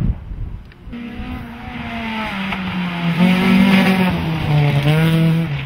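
A Honda Civic hatchback rally car's engine under hard load as it passes close by. Its note grows louder, falls in steps with a couple of quick revs, then drops away near the end.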